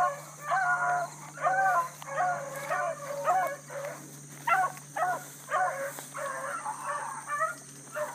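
Bluetick hounds baying on a running rabbit's track: a steady string of short, rising-and-falling bawls, about one or two a second, which shows the hounds are hot on the trail.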